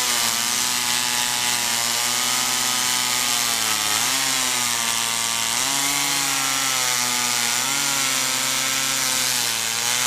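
Two-stroke Stihl chainsaw running at full throttle through a log, its engine note dipping and recovering several times as the chain bites into the cut.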